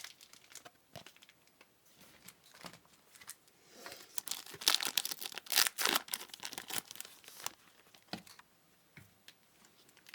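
Foil trading card pack wrapper crinkling and tearing as it is opened, with a dense stretch of crinkling from about four seconds in to about seven and a half seconds in. Scattered light ticks before and after.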